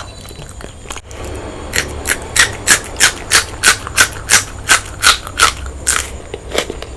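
Close-up chewing of crunchy food, a regular run of crisp crunches at about three a second that starts about two seconds in and stops near the end.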